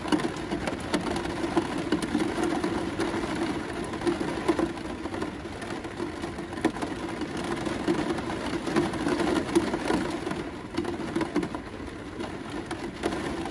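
Steady rain falling on a van's roof, heard from inside, with many individual drops pattering irregularly over a continuous hiss.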